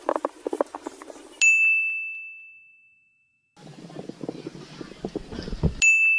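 A bright bell-like ding, struck twice about four seconds apart. Each rings on one high tone and fades over a second or two. Between the dings are short, abruptly cut snatches of muffled outdoor sound.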